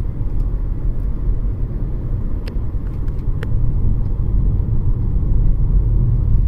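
Steady low rumble of engine and road noise inside the cabin of a 2007 BMW X3 3.0si with its inline-six, driving normally at street speed, with two light clicks about halfway through.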